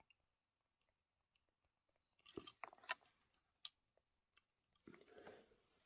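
Faint scattered clicks and short crinkly rustles of small plastic and diecast model parts being handled, with a cluster of clicks in the middle and another near the end.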